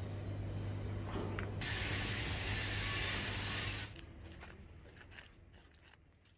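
Workshop noise: a steady low machine hum with a loud hiss of spraying air for about two seconds, then a few light clicks and knocks as it fades out.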